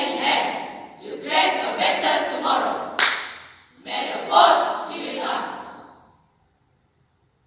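A school choral speaking team declaiming in unison, many voices together in phrases, with a sharp accented burst about three seconds in. The voices die away about six seconds in.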